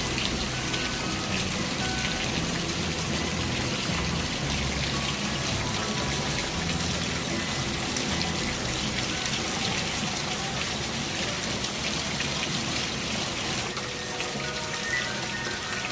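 Steady rain falling, with music playing underneath it.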